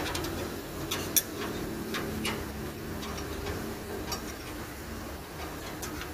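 Irregular light metallic clicks and taps from a spanner knocking against the steel radiator grille of a diesel generator, about eight of them, over a steady low hum.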